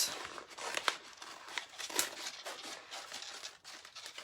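A Re·design with Prima rub-on transfer sheet crinkling as it is handled, with a few light clicks and ticks scattered through.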